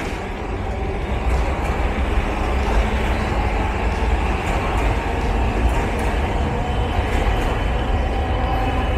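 Steady city street noise: a low traffic rumble with faint ticks on top.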